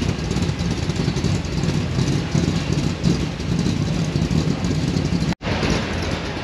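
Car engine running with a steady low rumble; the sound cuts out for an instant about five seconds in, then carries on.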